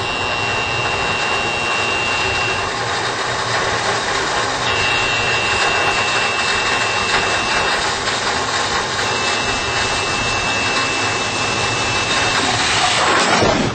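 Crash-test run: a loud, steady rushing noise, with a high warning tone sounding three times for about three seconds each. Near the end comes a short, louder burst, and then the sound cuts off abruptly.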